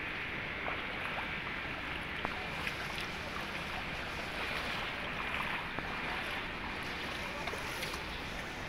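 Steady wash of noise from floodwater standing in a street, with a few faint clicks scattered through it.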